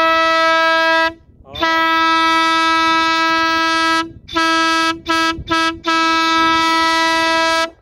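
A vehicle horn sounding one steady, single-pitched note in a series of blasts: two long ones, then three short ones, then a final long one.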